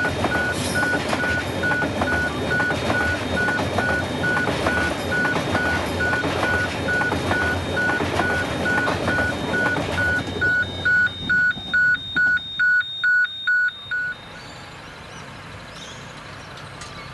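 Grain hopper wagons rolling past on the rails with steady wheel noise, while an electronic level crossing bell dings evenly about twice a second. The wagon noise fades about ten seconds in as the end of the train passes, and the bell stops a few seconds later.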